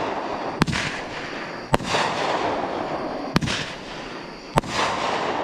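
Aerial fireworks bursting: four sharp bangs about a second or so apart, each followed by a short noisy tail that fades out.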